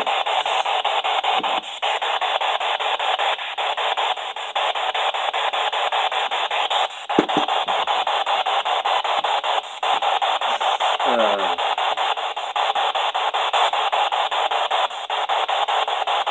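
PSB-7 spirit box sweeping down through the FM radio band: a steady rush of radio static chopped into quick steps as it jumps from frequency to frequency. Two brief snatches of broadcast sound cut through it, about seven and eleven seconds in.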